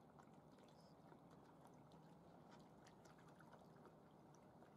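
Near silence: faint outdoor background noise with a few faint ticks and short high chirps.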